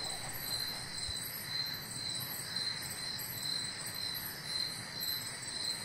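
Crickets chirping, a steady high trill that pulses about twice a second.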